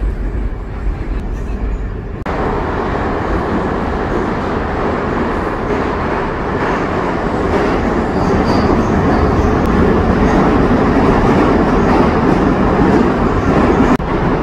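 Metro train running: a low rumble, then a loud rushing noise that comes in about two seconds in and grows louder, holding steady through the rest.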